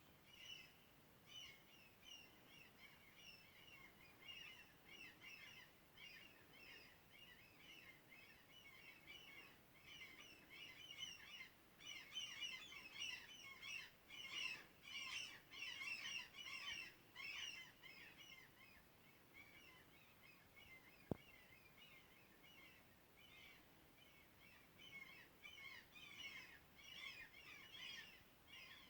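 Faint birdsong outdoors: many short chirps and tweets overlapping, busiest in the middle stretch. A single sharp click about two-thirds of the way through.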